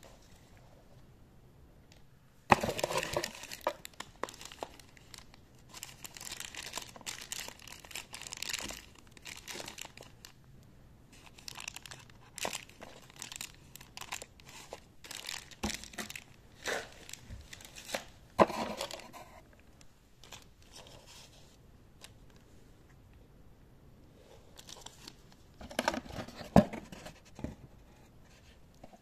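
Plastic bags and cardboard packaging being handled: irregular bursts of crinkling and rustling, with a sharp knock about two and a half seconds in and a few more later on.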